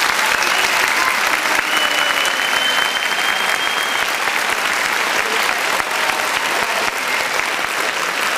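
Crowd applauding: dense, steady clapping throughout, with one long thin whistle held for about two seconds near the middle.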